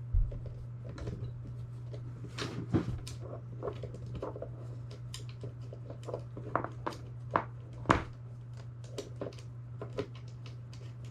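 Scattered clicks, taps and light knocks of small parts and hardware being handled and fitted during assembly, the sharpest about a quarter second in, near three seconds and near eight seconds, over a steady low hum.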